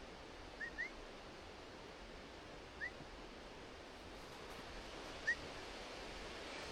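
Steady rush of a swollen stream, with a bird giving four short rising call notes: two close together near the start, one about three seconds in, and the loudest about five seconds in.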